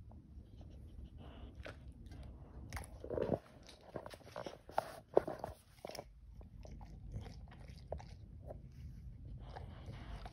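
Boxer dog crunching and chewing raw vegetables: a string of crisp crunches and mouth smacks that thins out after about six seconds.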